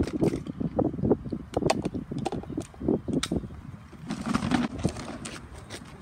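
Hard plastic clicking and knocking as a toy grabber arm lifts and tips a small toy trash bin over a plastic wastebasket and knocks it against the rim. A brief rustle a little past the middle as a hand reaches into the basket.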